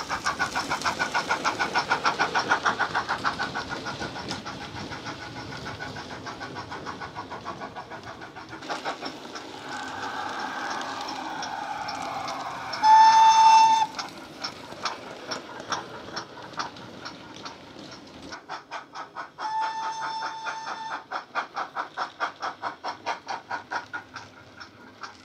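DCC sound decoder in a Bachmann OO gauge GWR Hall model steam locomotive, playing through a megabass speaker in the tender: steady rhythmic exhaust chuffs as the loco runs, fading as it moves away. About 13 seconds in comes a loud whistle lasting about a second, and around 20 seconds a quieter whistle over the chuffs.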